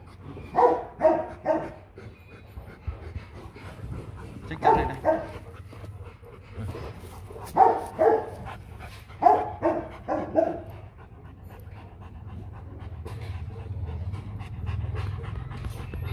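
Rottweilers barking in short runs of two to four barks about every three seconds, with a dog panting between them.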